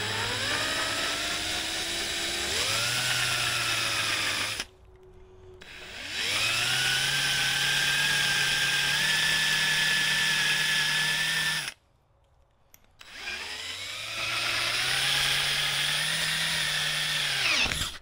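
Electric drill boring a small pilot hole through a metal handlebar riser clamp with a twist bit, in three runs. The motor's whine climbs in pitch as it spins up, holds steady for several seconds, then stops between runs.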